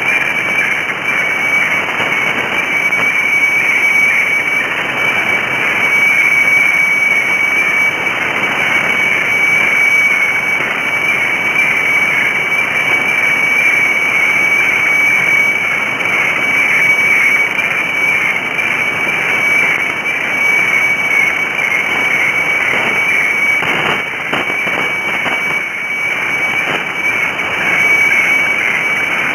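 Weather radiofax signal from the Thai meteorological station HSW64 on 7395 kHz, received on a shortwave radio. It is a steady high tone over a hiss of band static, the sound of a fax chart being sent.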